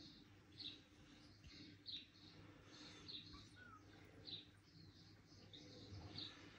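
Faint, short high chirps, about one or two a second, from a television playing a video of a mouse, over a low steady hum.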